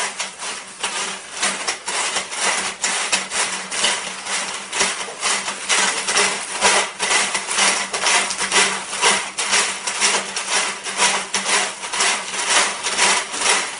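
Fish tape being pushed by hand into a coiled length of electrical conduit used as its case. It makes a continuous run of rapid clicking and scraping as the tape slides through the pipe.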